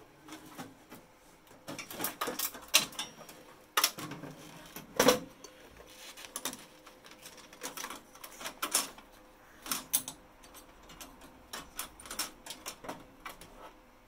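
Irregular clicks and knocks of an HP ML350p Gen8 server motherboard being shifted forward and lifted out of its steel chassis, metal and circuit board knocking against the case; the two loudest knocks come about four and five seconds in.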